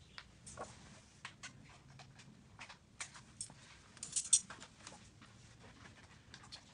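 Faint, scattered small clicks and light taps of fingers handling a small metal jighead and a paint brush, with a louder cluster of clicks about four seconds in.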